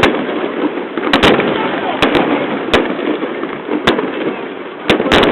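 Aerial fireworks bursting: sharp, irregular bangs roughly once a second, over a steady background of crowd voices.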